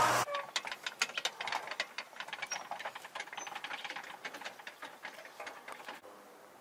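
A row of metal prayer wheels being spun by hand, clicking and rattling on their spindles in quick, irregular knocks; it cuts off near the end.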